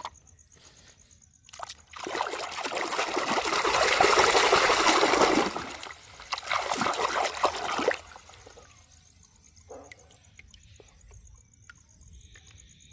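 Water trickling and splashing over toy cars as they are washed. It builds up after a second or two, runs strongest through the middle and comes in a few last bursts before stopping, leaving only faint small knocks.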